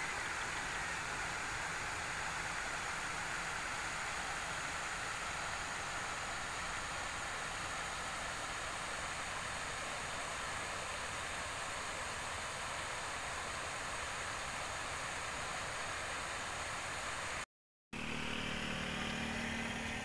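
Steady rush of a shallow river flowing over stony riffles, broken by a split-second silence near the end.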